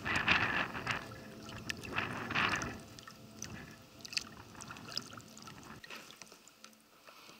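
Water splashing and sloshing beside an inflatable boat as a large pike is held at the surface by hand and released. There are two louder splashes in the first three seconds, then quieter lapping and small drips.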